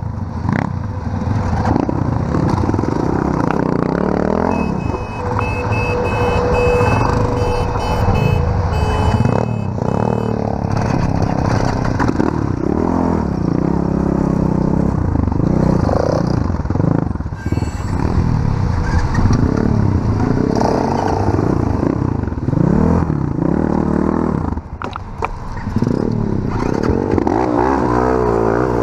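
Small off-road motorbike engine running under way, its revs rising and falling again and again as it is ridden over rough ground.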